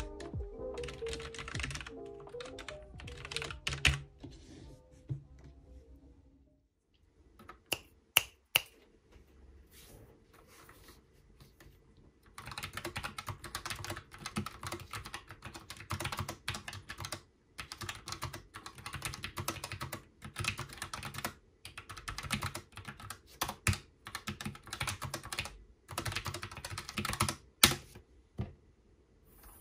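Typing on a Logitech MX Mechanical Mini keyboard with Tactile Quiet (brown) switches: a few single key presses, then a long run of fast, steady typing with brief pauses. Background music fades out in the first few seconds.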